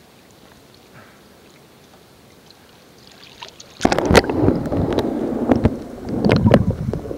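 A camera pushed into seawater a little under four seconds in: faint surface noise gives way suddenly to loud, muffled underwater gurgling and rushing over the submerged microphone, with many sharp clicks and knocks.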